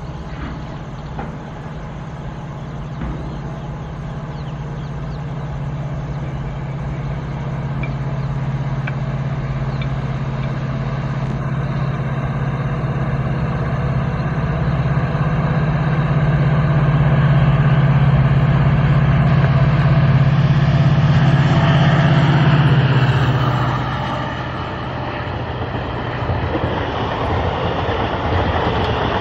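EMD WDP-4D diesel locomotive's two-stroke engine running under load as it approaches with an express: a steady low drone that grows louder, loudest about 17 to 23 seconds in. It then falls away as the passenger coaches roll past with wheel-on-rail noise.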